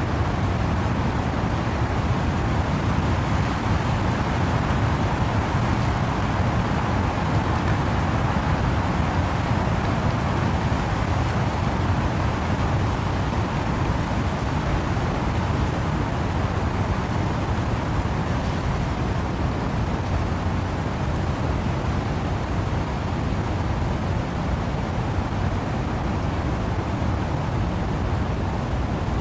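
Steady wind and rain through trees: an unbroken rushing noise, heaviest in a deep rumble, with a softer hiss above.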